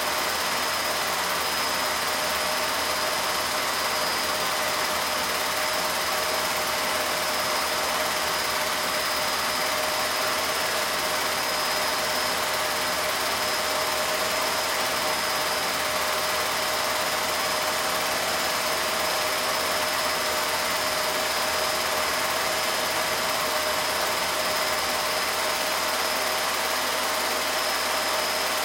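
Home-movie film projector running: a steady mechanical whir with a few held whining tones over a constant hiss.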